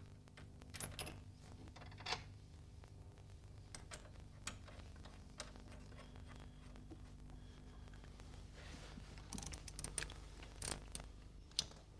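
Faint metallic clinks and scrapes of a washer and nut being fitted by hand onto an engine mounting stud, with a quick flurry of small clicks near the end, over a low steady hum.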